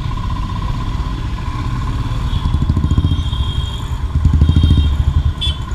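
Royal Enfield Himalayan's single-cylinder engine running at low speed in stop-and-go traffic. Its thump swells twice as the bike pulls forward. Short horn beeps from other traffic sound over it.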